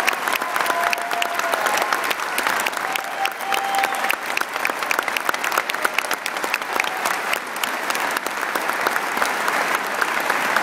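A large audience applauding: a dense, steady clatter of many hands clapping.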